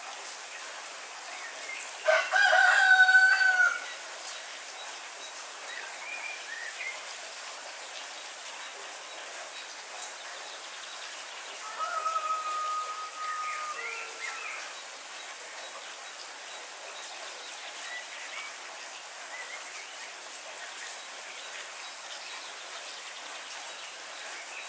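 Steady heavy rain, with a rooster crowing loudly about two seconds in and a fainter crow around twelve seconds in. A few faint bird chirps come through the rain in between.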